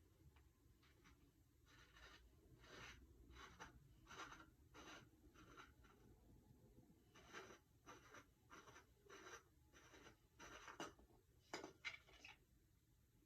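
Faint, repeated short scraping strokes, roughly two a second, with a brief pause midway: a small Phillips screwdriver being turned in a screw to take the battery cover off a lightsaber hilt.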